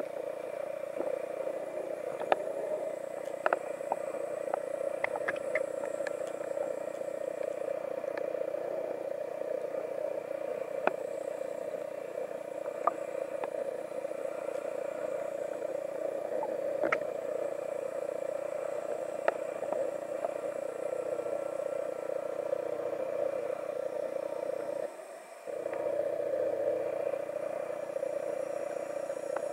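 Muffled underwater sound picked up through a camera's waterproof housing: a steady dull rush, with scattered sharp clicks. It briefly drops quieter about 25 seconds in.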